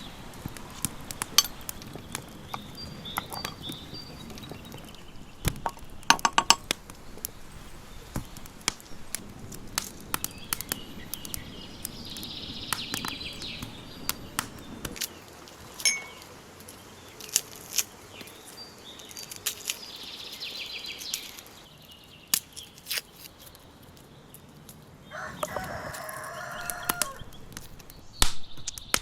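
Domestic chickens clucking, with a rooster crowing for about two seconds near the end, among scattered sharp clicks and knocks.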